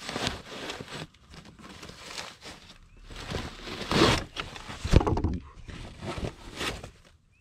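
Worn fabric battery blanket being pulled and torn off a car battery by hand: irregular rustling, scraping and ripping, with two sharp thumps about four and five seconds in, the second the loudest.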